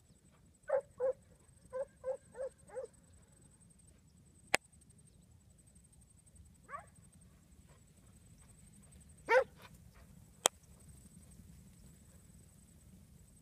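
Huntaway sheepdog barking as it drives a mob of sheep: a quick run of six barks, then a single bark and later a louder one. Two sharp clicks come between the barks.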